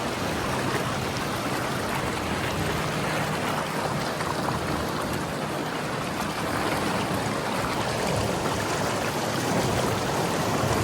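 Creek water pouring over a small waterfall close by, a steady rushing that grows a little louder near the end.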